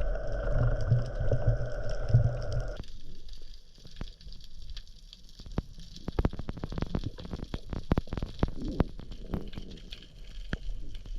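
Underwater sound picked up by a camera in its housing. A steady hum runs for about the first three seconds and cuts off suddenly. After that come irregular sharp clicks and crackles with low gurgling.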